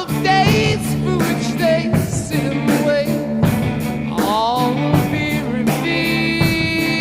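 Rock song with a steady drum beat, guitar and singing.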